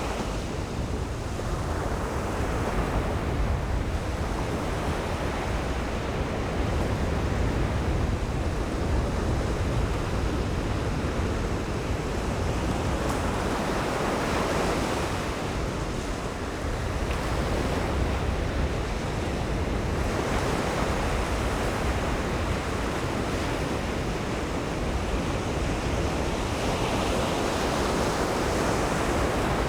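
Atlantic Ocean surf breaking on the shore, a continuous wash that swells and eases as each wave comes in every several seconds.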